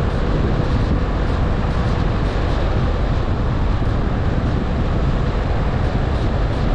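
Steady road noise of a car driving along a paved road: an even rumble of tyres and wind, strongest in the low end.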